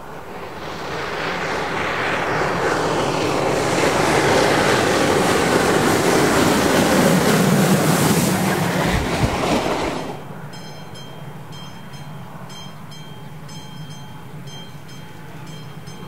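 A steam-hauled passenger train approaches and passes close by. The locomotive and wheels on the rails grow loud, then drop in pitch as the train goes past. About ten seconds in, the sound cuts to a much quieter, distant train, with evenly repeated high chirps over it.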